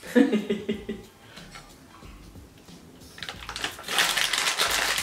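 A foil pouch of cat treats crinkling and rustling in the hand, a dense crackle that starts about three seconds in and continues.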